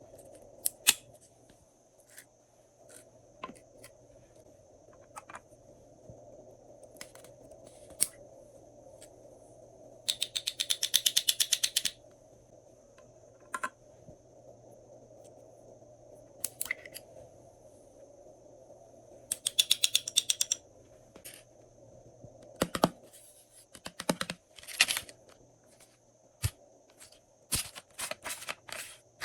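Slime-mixing handling sounds: scattered sharp clicks and taps of slime and small plastic items, with two bursts of rapid ticking lasting a second or two each.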